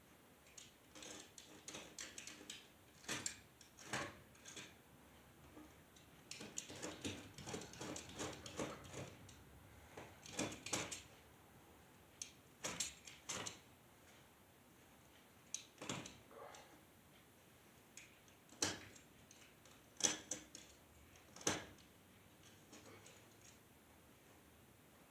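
Scattered clicks, clinks and knocks of small metal hardware and hand tools being handled, some single and some in quick clusters.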